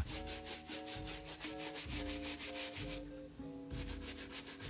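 A leather shoe being polished by hand with quick back-and-forth rubbing strokes, about eight a second, pausing briefly about three seconds in. Soft background music plays underneath.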